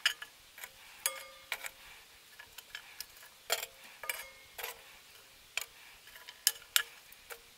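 Metal tongs setting charcoal briquettes one by one into a cast iron Dutch oven: irregular sharp clicks and clinks of tongs and briquettes on the iron, some with a short metallic ring.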